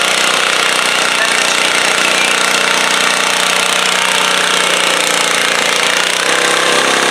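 Stock garden tractor engine running hard under load as it drags a stoneboat pulling sled, a loud, steady rough engine note that sags slightly in pitch and changes about six seconds in as the pull winds down.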